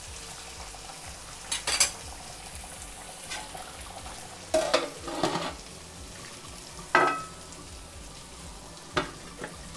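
Pot of biryani rice bubbling with a steady hiss, as it is closed for dum cooking. Several metal knocks and clinks against the pot cut through, and one clang about seven seconds in rings on briefly: a metal lid going on.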